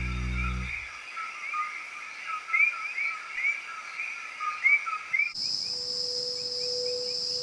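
Rainforest ambience: a dense chorus of short, repeated chirping animal calls, which cuts over about five seconds in to a steady, high-pitched insect drone, like crickets or cicadas. A sustained music chord fades out in the first second.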